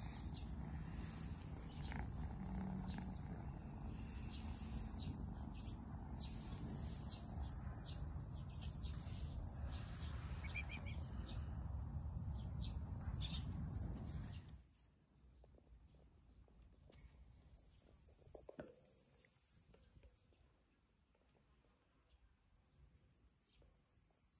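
Insects chirring in a steady, high-pitched drone over a low rumble, with scattered faint ticks. About fourteen seconds in the sound cuts to much quieter outdoor ambience, where the chirring is fainter and comes and goes.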